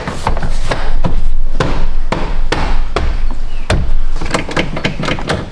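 Hands slapping and pressing a plastic SUV door trim panel to snap its retaining clips into the door: a series of about a dozen irregular thumps and knocks.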